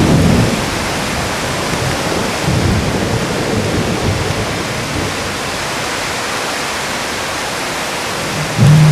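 Torrential downpour hissing steadily on concrete paving, with short low rumbles rising over it at the start, about three seconds in and again just before the end.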